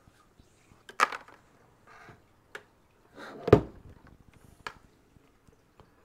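Handling sounds of a Wi-Fi router and its cables on a desk: scattered sharp clicks and knocks with a brief rustle, and one heavier thump about three and a half seconds in.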